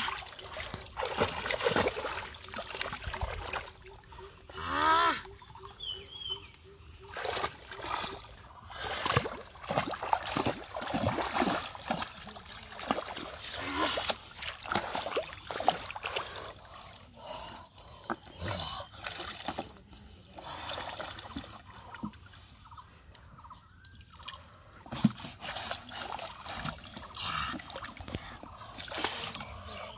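Irregular splashing and sloshing in shallow muddy water as a person wades through it and handles fish. There are a few short vocal sounds.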